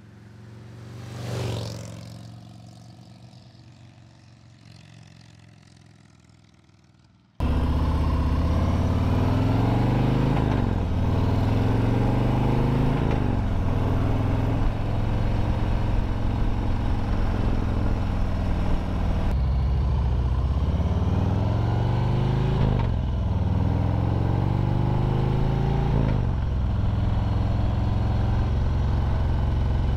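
A vehicle passes by, swelling and fading about a second and a half in. Then, heard from on the bike, a Harley-Davidson Road Glide's Milwaukee-Eight 114 V-twin accelerates up through the gears, its pitch climbing and dropping back at each of several upshifts.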